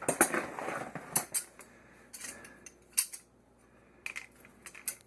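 Plumbing tools and brass fittings being handled: a scraping rustle with sharp metallic clicks in the first second and a half, then scattered single clicks, the sharpest about three seconds in.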